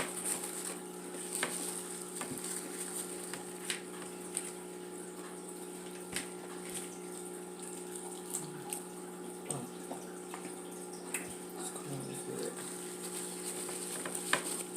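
A steady background hum with a high hiss runs throughout, under scattered short clicks and crackles from peeling and eating seafood-boil food by hand.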